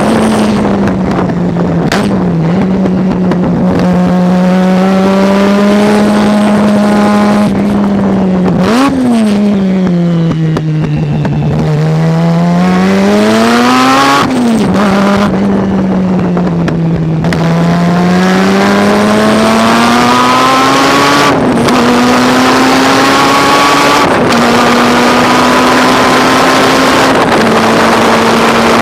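Race car engine at full racing load, its note climbing steadily then stepping down at gear changes and dipping where the driver lifts and brakes, over loud wind and road noise.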